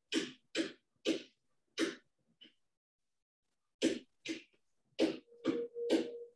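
A person's voice in short, breathy bursts, two or three a second, breaking off for nearly two seconds in the middle.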